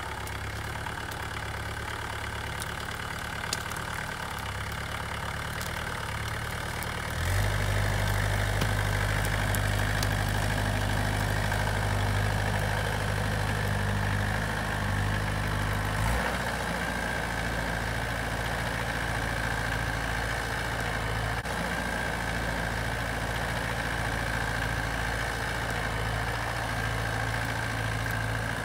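Goldoni Ronin 50 compact tractor's diesel engine running steadily while it pulls a forestry trailer loaded with logs. About a quarter of the way in the engine steps up to a louder, higher speed, with a steady high whine above it.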